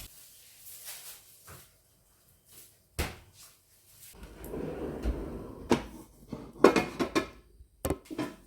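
Household handling noises: a single sharp knock about three seconds in, a soft rustling stretch, then a run of small clicks and taps near the end, as of a cupboard or drawer being opened and closed.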